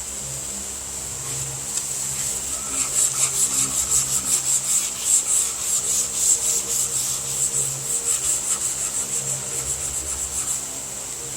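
Sandpaper on a hand sanding block rubbing back and forth over the primed body panel of a car under restoration, in quick even strokes about three a second that start about two and a half seconds in and ease off near the end.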